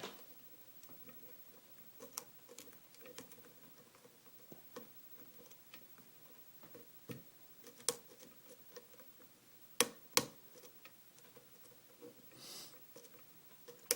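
Hook pick working the pins inside a 5-pin Kwikset pin-tumbler lock under tension: scattered faint metallic clicks and scrapes, with two sharper clicks about ten seconds in.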